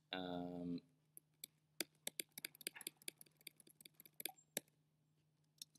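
Typing on a computer keyboard: quiet, irregular key clicks, several a second.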